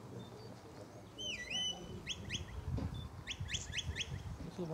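Shepherd's whistle giving commands to a working border collie: one swooping note that dips and rises again about a second in, then quick runs of short rising pips.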